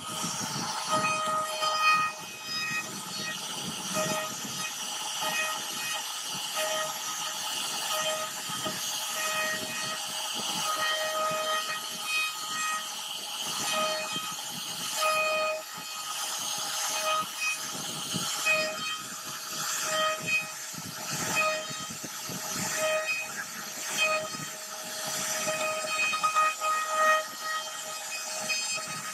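CNC router spindle carving a relief pattern into a wooden board. A high whine swells and fades again and again as the cutter bites, over the rasping hiss of the cut.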